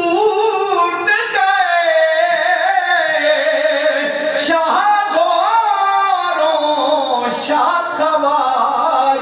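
A man singing a naat, an Urdu devotional poem in praise of the Prophet, unaccompanied, in long drawn-out notes that wander slowly up and down in pitch.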